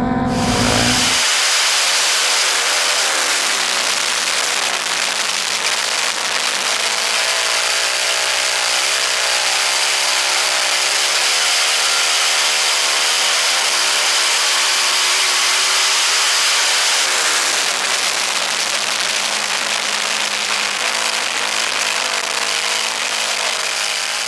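Onboard sound of a Yamaha flat-track racing motorcycle at speed: the engine's pitch rises and falls through the laps under a heavy rush of wind on the mounted camera's microphone. A deeper, louder rumble stops about a second in.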